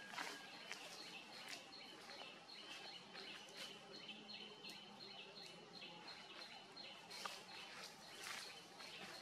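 Faint outdoor ambience: a bird chirping over and over in short high notes at two alternating pitches, with scattered light clicks and rustles.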